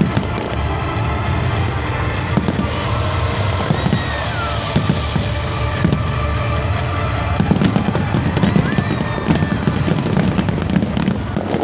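Fireworks finale: a dense barrage of aerial shells bursting in rapid, overlapping bangs and crackles, with music playing underneath.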